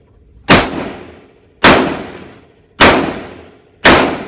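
Rifle fired one shot at a time: four sharp shots about a second apart, each trailing off in a long echo.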